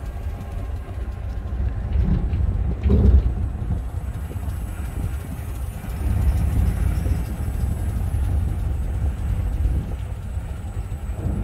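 Steady low rumble of a vehicle driving slowly along a street, with a short louder bump about three seconds in.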